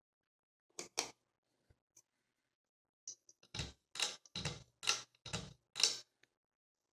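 Sharp clicks, most likely a ceiling fan's pull-chain switch being pulled: two about a second in, then six in quick succession roughly half a second apart.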